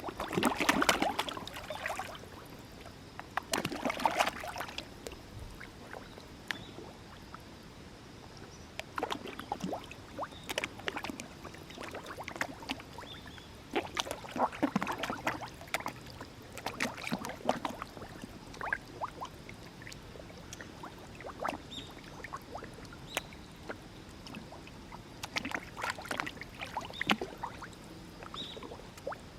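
Many koi splashing and smacking at the water surface as they take feed, in bunches of wet splashes every few seconds with quieter gaps between.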